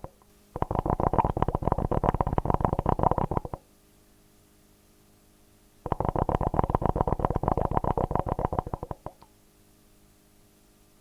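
Hookah water bowl bubbling as smoke is drawn through the water: two draws of about three seconds each of rapid, dense bubbling, with quiet pauses between them.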